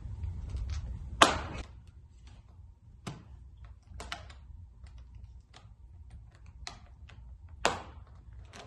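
Ski boot buckles being cinched and latched shut: a handful of sharp clicks and snaps, the loudest about a second in, with quieter ticks between.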